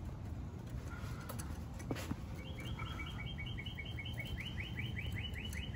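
A songbird singing a trill of short repeated chirps, about five a second, that quickens near the end, over a steady low background rumble.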